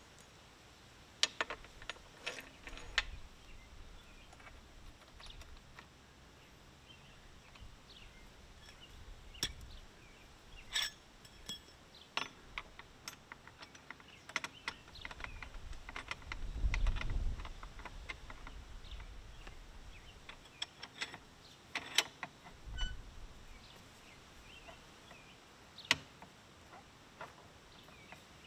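Scattered metal clinks and taps as a steel stop block and its bolts are handled and set back onto the rail of an Allis-Chalmers CA power-shift rear wheel rim, with a low rumble about halfway through.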